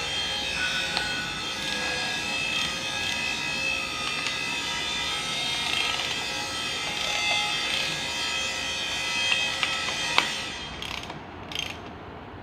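Hand tools clicking and clinking on metal parts, like a ratchet wrench being worked, with short ringing metallic notes and a sharper clink about ten seconds in.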